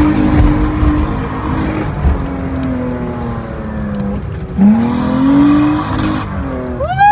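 Off-road truck's engine heard from inside the cab while driving over sand dunes, with tyre and wind rumble underneath. The engine note sags, dips sharply about halfway and then climbs again as the throttle comes back on. A few quick rising-and-falling yelps come right at the end.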